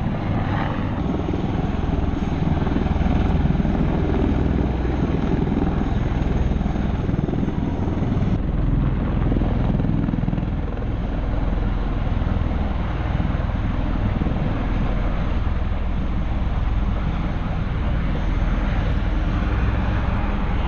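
Steady, loud rotor drone of military rotorcraft flying in: MV-22 Osprey tilt-rotors with an AH-1Z Cobra attack helicopter escort.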